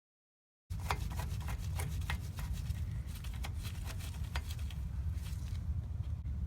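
Ratchet wrench clicking in an irregular string of sharp ticks as the new starter's mounting bolts are tightened, stopping about five and a half seconds in, over a steady low rumble.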